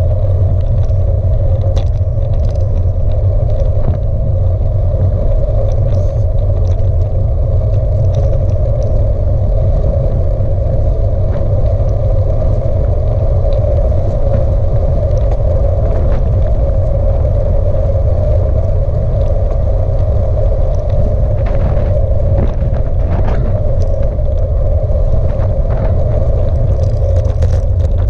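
Bicycle riding along a tarmac lane, heard on a bike-mounted camera: steady, loud wind rumble over the microphone with tyre noise on the road surface, and a few faint ticks.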